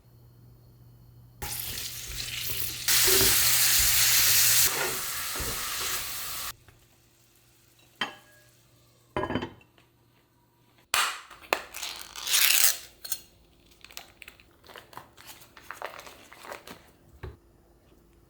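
Food sizzling in a hot cast iron frying pan, a loud hiss for about five seconds that then drops away. Later come a few sharp clicks, then a run of utensil knocks and scrapes against the pan.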